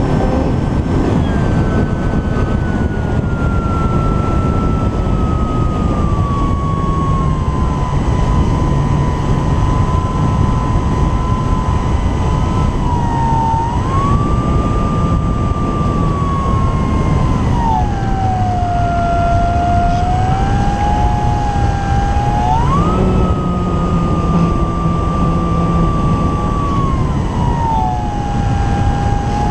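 Electric motor and propeller of an Apprentice S 15e RC trainer plane in flight, a whine whose pitch falls and rises several times as the motor speeds up and slows down. It sits over heavy wind rush on the microphone of the camera strapped under the fuselage.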